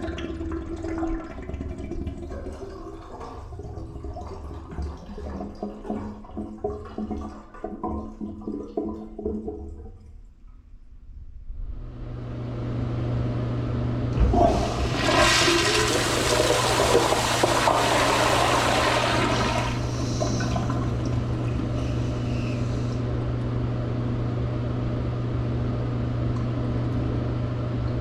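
Toilet flushing. The bowl first trickles and gurgles as a flush dies away, and after a short lull there is a click about fourteen seconds in. A loud rush of water follows for about five seconds, then eases into a steadier, quieter flow over a low hum.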